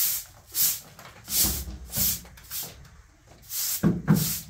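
Short straw hand broom sweeping a bare cement floor in quick swishing strokes, a little over half a second apart, with a short pause about three seconds in. Near the end there is a louder bump.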